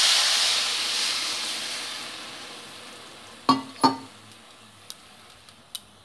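Water poured into a hot metal kadai of fried moong dal, sizzling loudly at first and dying away over about three seconds. About three and a half seconds in come two quick metal clinks against the pan, then a few faint ticks.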